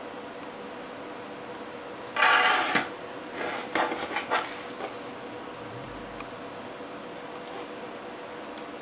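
Masking tape being peeled off a painted plastic model truck cab: a short raspy rip a little over two seconds in, followed by several light clicks and knocks as the hard plastic cab is handled.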